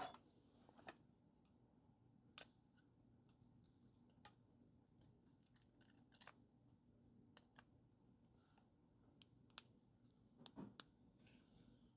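Faint, scattered small clicks and taps as the Samsung Note 9's board and parts are fitted back into the phone's housing, over a faint steady low hum.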